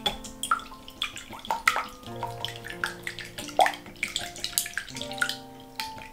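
Water splashing and dripping, with many short, irregular plinks and plops.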